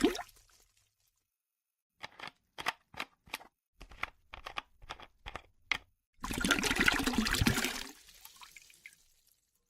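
Water dripping in about a dozen separate drops, then a gush of poured water lasting about two seconds that trails away.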